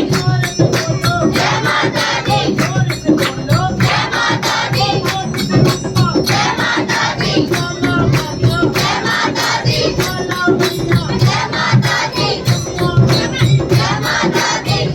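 Group of voices singing a devotional chant over a fast, steady beat of jingling percussion, about four strikes a second.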